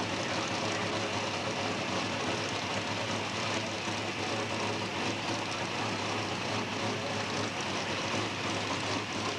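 NASCAR race truck's V8 engine idling steadily, under an even hiss.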